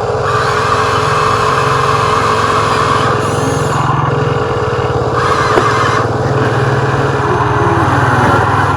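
Radio-controlled construction machine's motor running steadily under load, its tone shifting a few times as it works, with a single click just past the middle.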